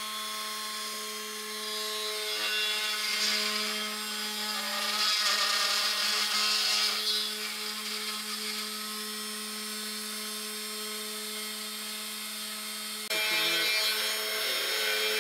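A 3018 Pro desktop CNC router's small DC spindle motor runs with a steady hum while the bit mills a wood board. A louder cutting hiss comes in for a few seconds around the middle.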